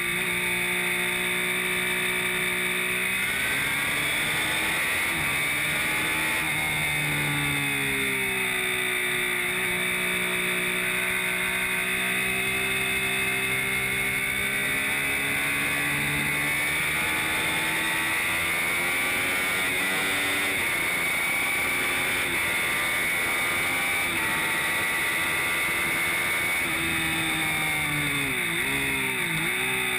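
Triumph Street Triple R's 675 cc inline-three engine at track pace, its revs climbing and falling again and again through gearshifts, with a few quick dips and rises in pitch near the end, over a steady rush of wind.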